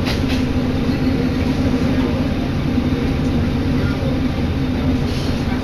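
Diesel railcar of the Isumi Line running, heard from inside the passenger cabin: a steady engine drone over a low rolling rumble.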